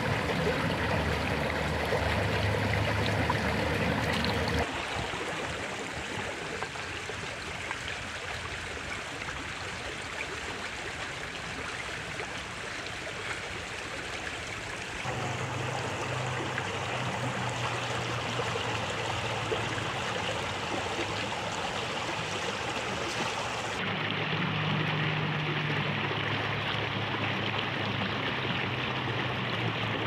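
Rushing stream water, a steady rush that changes abruptly about 5, 15 and 24 seconds in.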